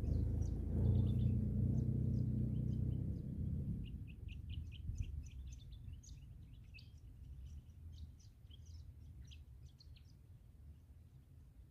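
Mitsubishi Pajero's engine rumbling as it drives away over a soft sand track, fading out over the first few seconds. Birds chirp throughout with many short calls, which are most of what is left once the engine has faded.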